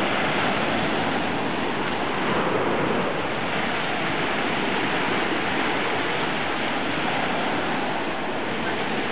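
Small Black Sea waves breaking and washing up a sandy beach: a steady hiss of surf that swells a little as each wave comes in.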